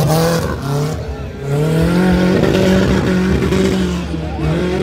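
Off-road buggy engine revving under load as it climbs through dirt, its pitch stepping up and down with the throttle.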